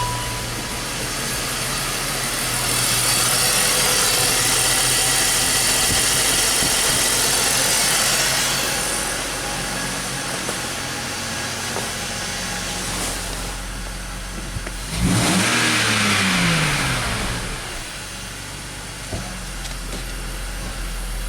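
BMW X5's six-cylinder engine running with a misfire. It grows louder for several seconds about three seconds in, and is revved sharply about fifteen seconds in, its pitch falling back to idle over a couple of seconds.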